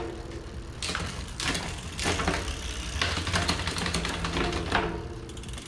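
Bicycle drivetrain turned over by hand on a stand: chain running steadily over the cassette and derailleur pulleys, with several clicks and clatters of the chain.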